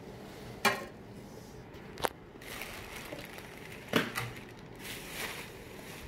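Packaging being handled: three sharp knocks, the first under a second in, the next about two seconds in and the last near four seconds, with light rustling of wrapping and cardboard between and after them.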